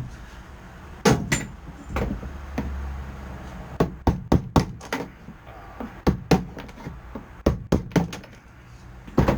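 Hammer blows on a chisel chipping hardened bitumen sound-deadening off a Classic Mini's steel floor pan: about a dozen sharp, irregular knocks, some in quick pairs, as the pad breaks away in chunks.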